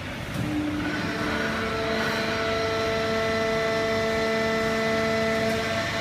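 A fully automatic horizontal hydraulic baler and its feed conveyor running: a steady mechanical noise with a steady whine of several tones, growing louder about a second in.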